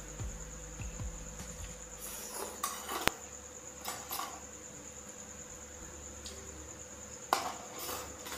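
Someone eating instant noodle soup: a spoon and fork clinking and scraping in a plastic bowl, with short slurps and chewing, one sharp clink about three seconds in and another loud clatter near the end. A steady high-pitched whine runs underneath.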